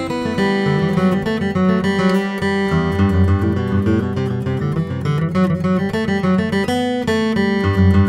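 Martin D-28 Authentic 1931, a 12-fret dreadnought acoustic guitar with an Adirondack spruce top and Madagascar rosewood back and sides, played solo in a steady run of picked notes and chords over ringing bass notes.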